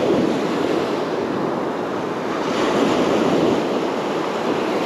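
Ocean surf washing onto the beach: a steady rush of breaking waves that swells a little about halfway through.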